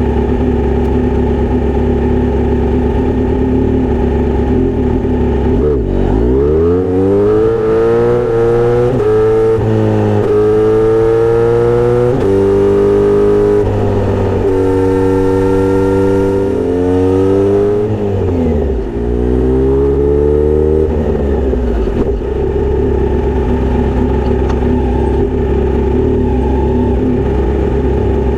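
Kawasaki Z900RS inline-four with a Misty Kintaro short straight-pipe exhaust, loud and steady at idle, then pulling away and accelerating up through the gears: the pitch climbs and drops back at each shift. After that it slows with a falling pitch, picks up briefly, and settles back to a steady idle for the last third.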